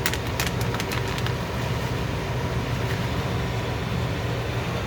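Steady low mechanical hum with a few light clicks in the first second and a half.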